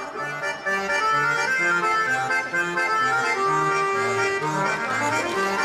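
Instrumental music: a melody of held notes over a bass line that steps back and forth between low notes.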